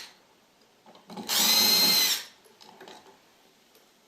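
Electric drill-driver running in one burst of about a second, its motor whine rising slightly, backing out a wall switch's mounting screw. Faint handling clatter follows.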